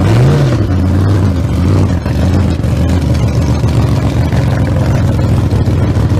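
Loud engine running, briefly revved up and back down near the start, then running steadily at low speed.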